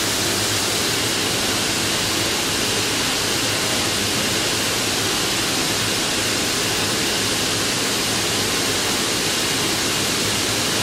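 Steady, loud rushing noise with a faint low hum under it: the running din of a distillery still house around a copper pot still.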